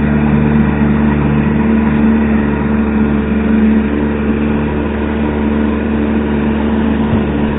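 Outboard motor of an inflatable boat running steadily at cruising speed, with water rushing and splashing in the wake against a towed inflatable boat.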